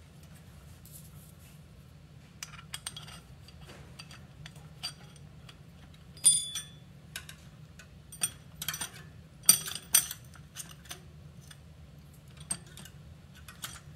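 Small metal parts clinking and tapping as bolts are handled and fitted on a bicycle's rear sprocket and hub adapter, scattered sharp clicks with the loudest about six seconds in and again around nine to ten seconds in, over a low steady hum.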